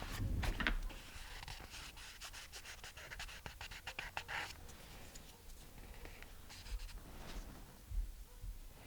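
A dog panting quickly and faintly, with some scratching.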